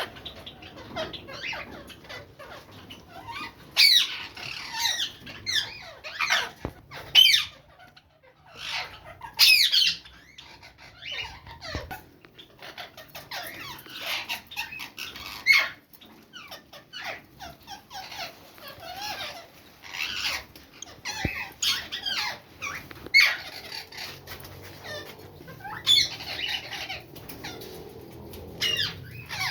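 Bird chicks calling: many short, high, squeaky calls coming in irregular bursts, some loud, with brief pauses between.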